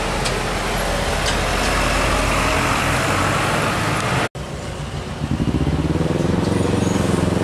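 Passing truck traffic: a diesel box truck going by with a steady haze of engine and tyre noise, then after a sudden cut a Hino 500 container truck's diesel engine coming closer, its note building up.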